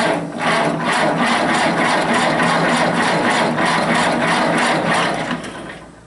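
Massey-Harris tractor engine being cranked over by its starter for about five and a half seconds without catching, a steady churning with a beat of several compression strokes a second, cutting off near the end. It does not fire; the owner suspects a breakdown in the ignition that makes the spark come and go.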